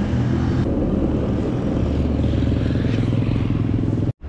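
A motor vehicle engine running steadily close by, with street noise; it cuts off suddenly near the end.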